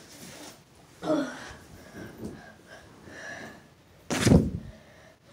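Short breathy vocal sounds, like gasps, with one loud one about a second in. A loud thump close by comes about four seconds in.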